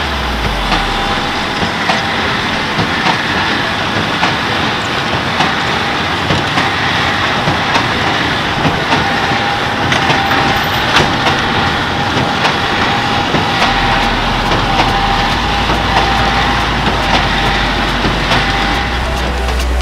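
John Deere tractor pulling a CLAAS Quadrant large square baler while baling hay. The engine runs steadily under the clattering baler, with regular sharp knocks and a faint steady whine.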